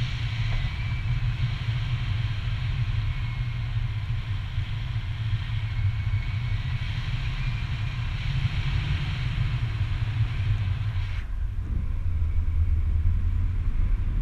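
Wind buffeting an action camera's microphone in flight under a tandem paraglider: a steady low rumble with an airy hiss over it, the hiss dropping away suddenly about eleven seconds in.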